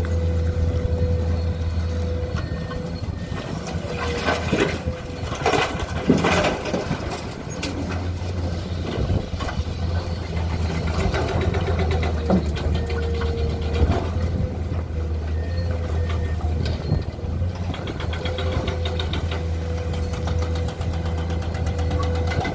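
Heavy diesel machinery engine running steadily with a steady whine over it. About four to seven seconds in come a run of knocks and clattering, and there is another single knock near the middle.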